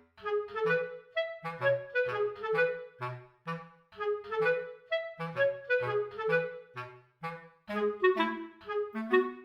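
Light, bouncy background music: short separate notes on a clarinet-like woodwind with a bass line below.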